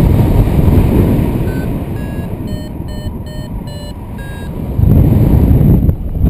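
A paragliding variometer beeps in a quick run of short tones, about two a second for around three seconds, the sound a vario makes when the glider is climbing in lift. Heavy wind noise rumbles on the microphone underneath, easing while the beeps sound and coming back strongly near the end.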